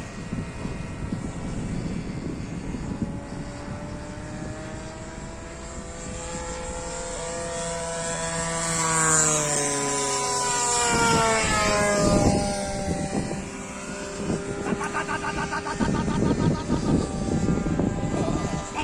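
Radio-controlled model warbird plane flying past, its motor and propeller whining in a steady pitch that climbs as it approaches and drops sharply as it passes, loudest about halfway through. Gusts of wind rumble on the microphone.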